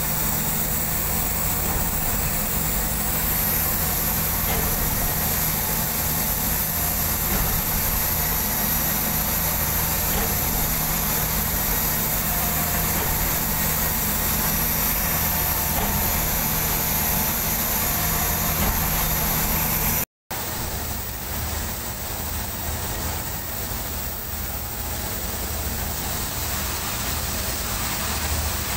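Heavy diesel engine of a truck-mounted concrete pump running steadily while it pumps concrete. The sound cuts out for a moment about two-thirds through, then goes on a little quieter.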